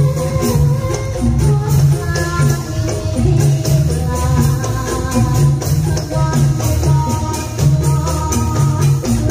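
Live jathilan (kuda kepang) dance music: loud, regularly repeating drum beats under a melody of held notes, with jingling percussion.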